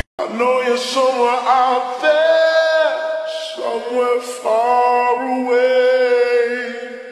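Music soundtrack: a voice singing long, sliding, held notes with no drums or bass beneath it, after a brief dropout right at the start.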